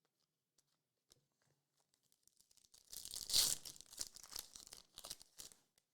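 Trading-card pack wrapper crinkling and tearing, with a few faint clicks first and then about three seconds of dense crinkling starting near the middle.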